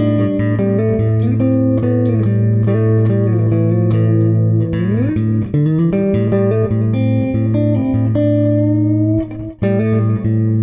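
Improvised guitar music: plucked notes over a steady low bass note, with a rising slide about five seconds in and a brief gap near the end.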